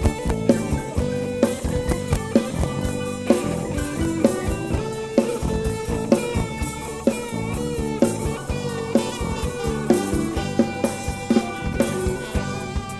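Live band playing an instrumental passage with no singing: guitar lines over a drum kit keeping a steady beat, with bass underneath.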